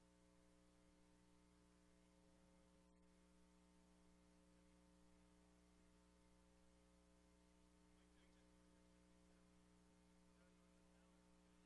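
Near silence: a faint, steady electrical hum on the broadcast feed.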